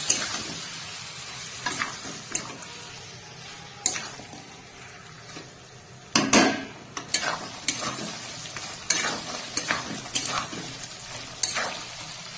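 Metal spatula scraping and clanking against a metal kadai in irregular strokes while stirring chicken skin and offal frying in spiced masala, with the food sizzling underneath; the loudest scrape comes a little past the middle. It is the stir-frying (kosha) stage of a curry.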